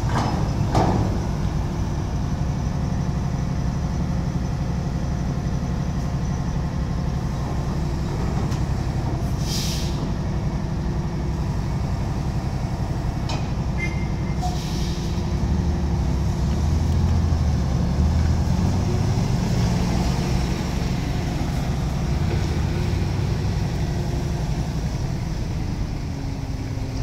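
Heavy diesel engines of a truck-mounted crane and a truck running steadily while the crane hoists a shipping container, the low engine hum swelling for a few seconds past the middle. Two short hisses of air come several seconds apart partway through, and there is a single knock about a second in.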